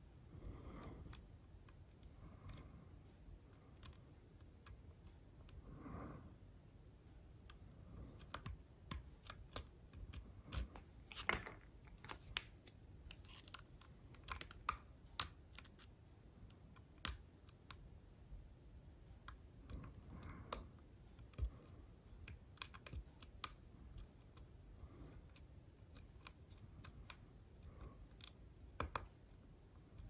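Faint, irregular metallic clicks and scrapes of a hook pick working the pins of an Assa Ruko lock cylinder held under a tension wrench, the clicks coming thickest in the middle of the stretch.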